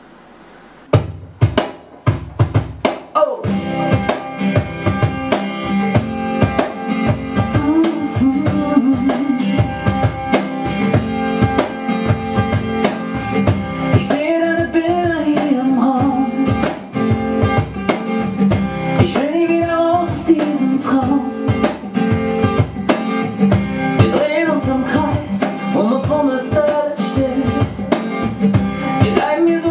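Acoustic pop band playing: a steel-string acoustic guitar and a cajón, with a male voice singing. Hand-drum hits begin about a second in, the guitar joins at about three seconds, and the singing comes in at about seven or eight seconds.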